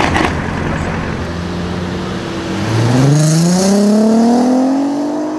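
Volkswagen Golf R-family car's engine running low and steady, then from about halfway in the engine note rises steadily and gets louder as the car accelerates hard away.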